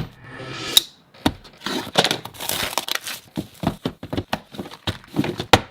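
Packaging rustling and crinkling as a camera box is unpacked by hand, with many short clicks and knocks.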